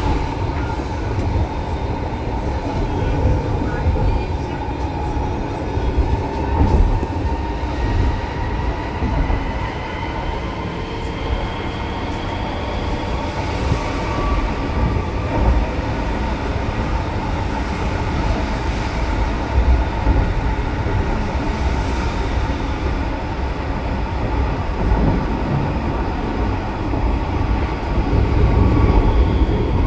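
Type R tram running on rails, heard from inside the car: a low rumble of wheels on track under a steady electric whine, with higher whining tones that rise in pitch partway through.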